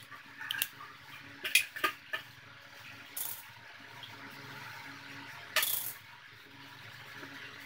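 Scattered small clicks and taps of makeup tools being handled, a brush and a brow pencil, with one louder clack about two-thirds of the way through, over a faint steady hum.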